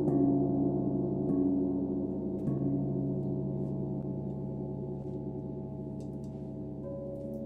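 Meditation gong struck softly three times in quick succession, its deep layered tones ringing on and slowly fading. Near the end, faint high chime tinkles and a new higher ringing tone come in.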